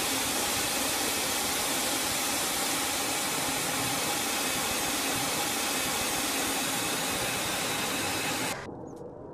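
Jet engine noise from a Sukhoi Su-57 stealth fighter: a loud, steady, even rush like hissing air that cuts off abruptly about eight and a half seconds in.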